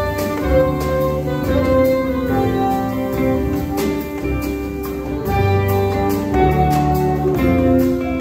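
A small jazz ensemble playing live: sustained saxophone and electric guitar lines over piano, a walking upright bass line, darbuka and drum kit, with steady drum and cymbal hits.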